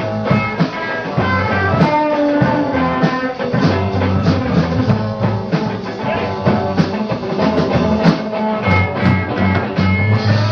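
Live rock band playing: guitars over bass guitar and a drum kit, with a steady beat of drum hits.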